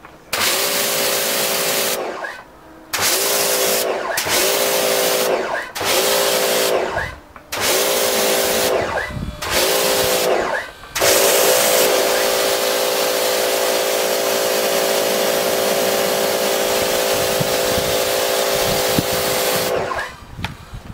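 Electric pressure washer spraying water onto a car bonnet: the pump motor whines up as the trigger is squeezed, in about six short bursts of a second or so, then runs steadily for about nine seconds before cutting off near the end.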